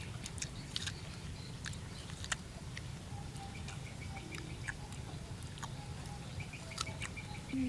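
Someone chewing a crunchy fresh guava: scattered sharp crunching clicks over a low steady rumble.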